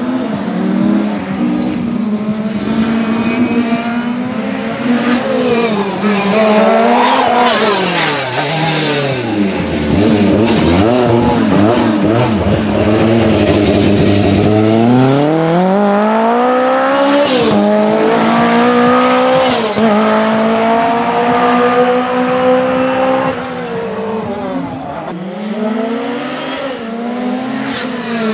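Lancia Rally 037's supercharged four-cylinder engine revving hard at full throttle, its pitch climbing and dropping through gear changes. It falls to low revs near the middle, then pulls hard again with quick upshifts.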